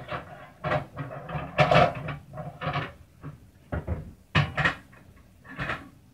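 Kitchen clatter: a dozen or so irregular knocks and rattles as cupboards and kitchenware are handled.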